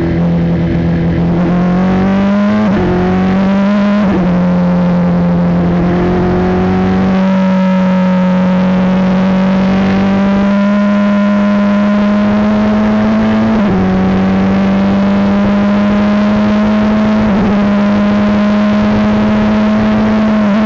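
Formula 3 single-seater's engine heard onboard under hard acceleration, pitch climbing in each gear with brief dips at several upshifts.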